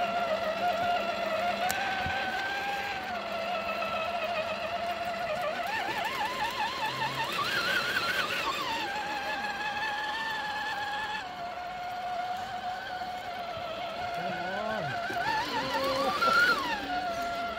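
Whine of a 1/10-scale RC crawler's electric motor and gearbox as it climbs a steep dirt slope, the pitch wavering with the throttle. The pitch rises sharply twice, about six to eight seconds in and again near the end, then drops back.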